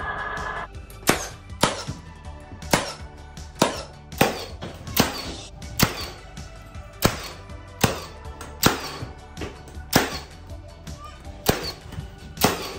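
A sliding miter saw's motor whine cuts off just after the start. Then a Milwaukee M18 Fuel cordless nailer fires trim nails into a beadboard ceiling, about sixteen sharp cracks at an uneven pace of roughly one a second or faster.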